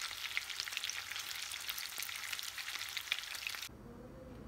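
Minced-meat patties sizzling and crackling in hot oil in a frying pan, with many small pops. The sizzle cuts off suddenly near the end.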